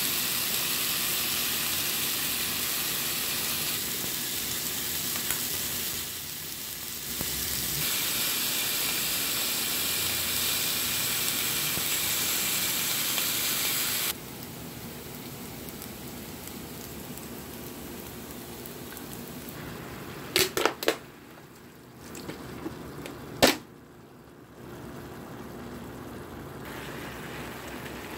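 T-bone steak sizzling on a ridged grill pan, a steady hiss that drops suddenly to a quieter level about halfway through. A few sharp clicks or taps come about two-thirds of the way in.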